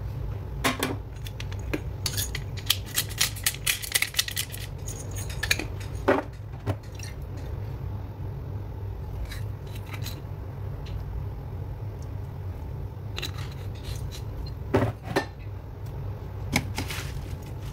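Kitchen clatter of seasoning a salad in a glass bowl: sharp clicks and clinks of a utensil and containers. A quick run of clicks from about two seconds in lasts about three seconds, then a few single clinks, over a steady low hum.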